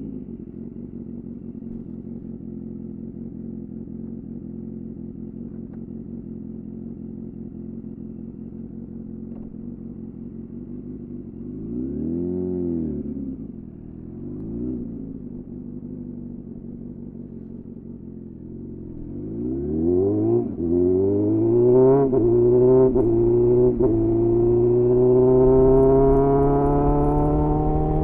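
2001 Suzuki GSF 600 Bandit's air/oil-cooled inline-four idling steadily through an aftermarket SC-Project CR-T-style slip-on exhaust with a dB-killer fitted. About twelve seconds in there is a throttle blip, and a smaller one follows shortly after. Then the bike pulls away: revs rise in several short steps, then climb steadily near the end.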